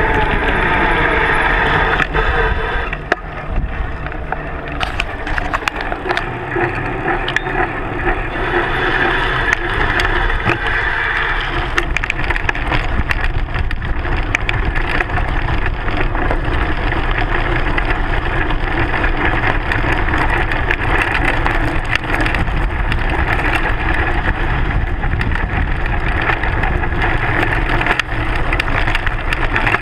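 Mountain bike descending at speed, heard from a fork-mounted GoPro: the knobby front tyre crunching over gravel and dirt, with a steady rush of noise and many sharp rattles and knocks from stones and bumps on the front wheel and fork. The knocks become much denser a few seconds in, where the ride leaves tarmac for a gravel track.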